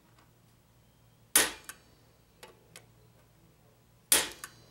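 Two sharp hammer blows on a steel punch, about a second and a half in and again near the end, driving the roll pin that fixes the new gear onto a TH400 (Turbo 400) governor. Each blow is followed by a lighter tick or two.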